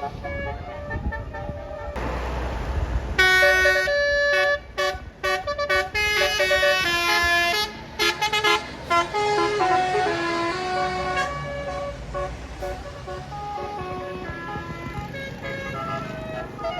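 Bus telolet horn, a Basuri multi-tone air horn, playing a melody of stepped notes over a bus's low rumble. A loud run of short, choppy notes comes from about three to eight seconds in, then a softer string of notes follows.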